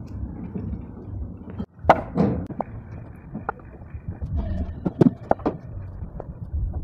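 Sawn walnut blocks knocking against each other as they are stacked by hand: a string of sharp wooden clunks, the loudest about two seconds in. A low steady rumble comes before them.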